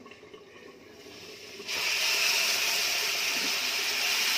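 Hot oil in an iron kadai bubbling faintly, then a wet spice paste of yogurt, ginger-garlic and tomato drops in about a second and a half in, and the oil bursts into a loud, steady sizzle.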